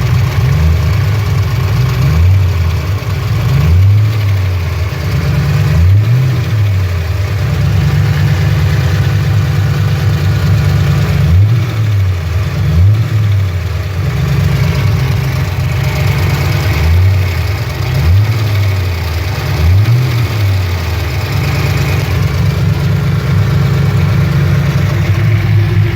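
A Fox-body Mustang's 5.0 V8 idling, blipped up and back down about seven times. It carries the valvetrain noise the owner cannot pin down after a rebuild, suspected rocker or lifter noise.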